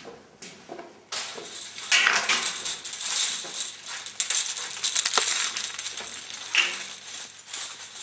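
Loud, close rustling and rattling full of small sharp clicks. It starts suddenly about a second in, peaks twice and eases off near the end.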